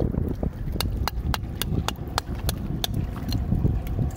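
Rusty iron hook tapping and chipping at a clump of oyster shells: a run of sharp clicks, about three a second, over low wind rumble on the microphone.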